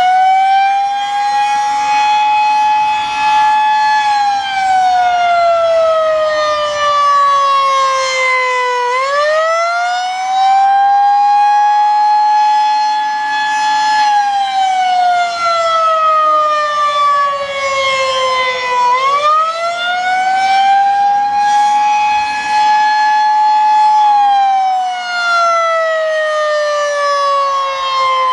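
Federal Signal 2001-SRNB outdoor warning siren sounding the Attack signal, very loud and high-pitched. Its tone climbs quickly, holds for a few seconds, then slides slowly down, over and over about every ten seconds.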